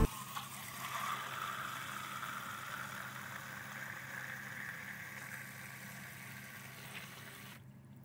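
Water pouring from a hose into a plastic bucket, splashing and gurgling as clean water flushes descaler out of a tankless water heater through its hot-water service valve. It slowly gets quieter, with a faint steady hum underneath.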